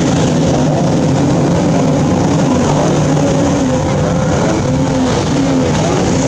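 Thundercat racing inflatables' outboard engines running hard at speed: a steady, loud drone whose pitch wavers slightly as the boats ride the chop.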